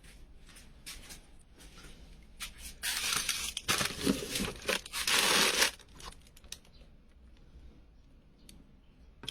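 Plastic bags and medicine packaging rustling and crinkling as someone rummages through stored medicines. Light taps and clicks run throughout, with a louder stretch of crinkling for a couple of seconds in the middle.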